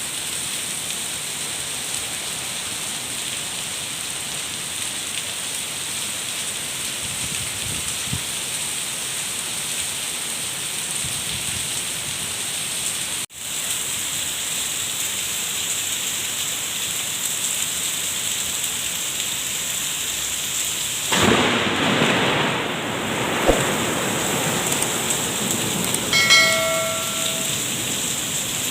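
Heavy rain pouring steadily, with a louder surge of downpour about two-thirds of the way through. Near the end comes a brief pitched sound with several tones.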